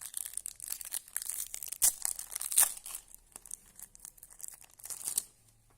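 Foil wrapper of a Topps Slam Attax trading card pack being crinkled and torn open by hand, a run of dense crackling with two sharper crackles in the middle. It stops near the end.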